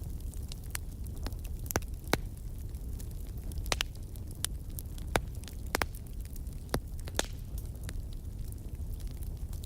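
Wood fire burning in a fireplace: a steady low rumble of the flames with irregular sharp crackles and pops, a few louder snaps among many small ones.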